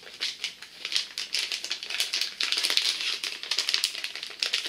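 Packaging being handled: plastic wrap and packing paper rustling and crinkling, with a dense run of quick, irregular crackles and clicks.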